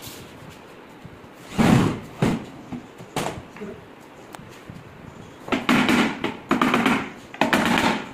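Laminated wooden cabinet box being handled on a worktable: a few short knocks and scrapes, then three longer scraping rubs in the second half.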